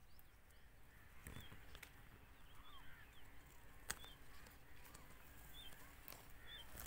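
Faint outdoor ambience with short, high bird chirps repeating about once a second, and a few sharp clicks.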